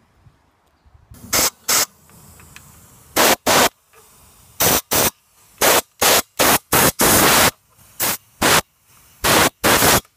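Compressed-air blow gun fired in short blasts into a carburetor, about fifteen sharp hisses with a few held a little longer, blowing dirt out of the carburetor's passages during cleaning.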